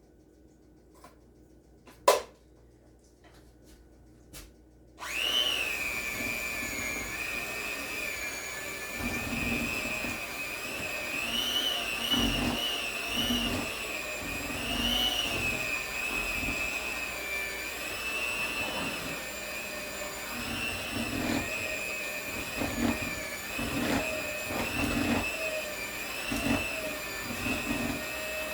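Electric hand mixer switched on about five seconds in and running steadily through cookie batter, its whine wavering slightly, with repeated knocks underneath. Before it starts, a few clicks and one sharp knock.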